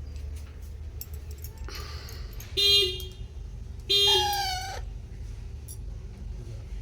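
A baby parrot giving two loud, harsh calls about a second and a half apart, the second sliding down in pitch, after a short hiss.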